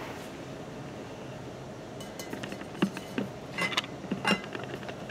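Steady low room hum, then from about two seconds in a string of short, irregular light clicks and clinks.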